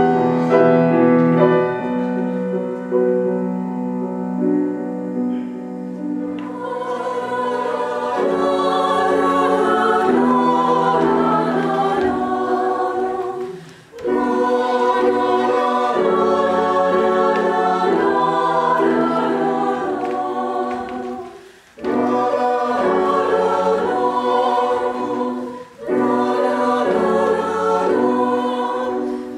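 Piano chords ringing for the first few seconds, then a group of students' voices singing a melody in several parts from sheet music. The singing breaks off briefly a few times.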